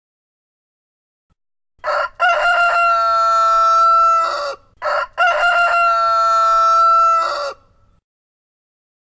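Rooster crowing cock-a-doodle-doo twice in a row, starting about two seconds in; each crow is a few short choppy notes followed by one long held note that drops in pitch at the end.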